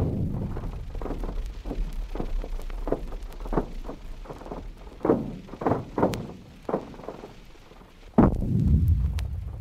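Seismometer recording of the ground motion of the 1952 California earthquake at Pasadena, played back several hundred times faster than real time so the shocks become audible. A heavy, deep crash opens it, followed by a run of sharp cracks and thuds, and a second heavy crash with a deep low rumble about eight seconds in.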